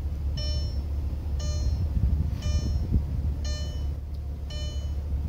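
Electronic warning chime of an Audi TT's dashboard: five short, high beeps about a second apart. Underneath is the low, steady hum of the car's VR6 engine running, heard from inside the cabin.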